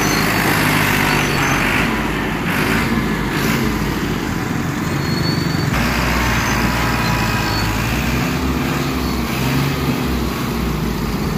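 Diesel farm tractor engines running under load, the engine speed rising and falling a few times as the tractors work their heavy sugarcane trolleys.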